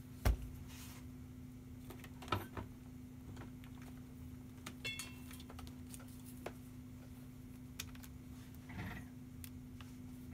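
Handling noises on a workbench while a laptop and its power cable are moved about: a sharp knock about a quarter second in, then scattered light clicks, a faint short high tone about five seconds in, and a brief rustle near the end. A steady low hum lies underneath.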